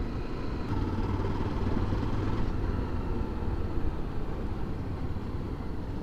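Motorcycle engine running steadily while riding along a paved road, heard from the rider's seat with road and wind noise.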